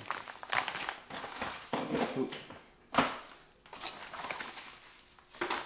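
Clear plastic zip-lock bag crinkling and rustling in irregular bursts as it is handled and pulled open, with one sharp crackle about three seconds in.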